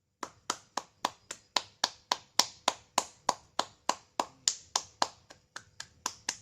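Rhythmic hand slaps, about four sharp slaps a second. They are strongest in the middle and lighter near the end.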